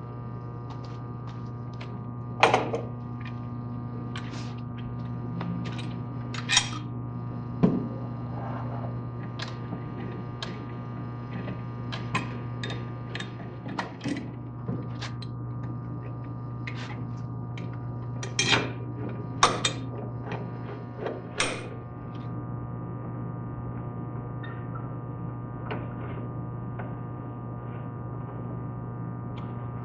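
Clamps being set and tightened down onto a wooden pressure plate over a glued scarf joint: scattered clicks and knocks of the clamp parts, a few of them louder, over a steady electrical hum.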